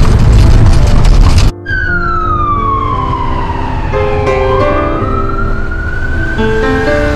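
Loud road noise for the first second and a half, cut off abruptly. Then an emergency-vehicle siren wails in one slow slide down in pitch and back up again, over background music.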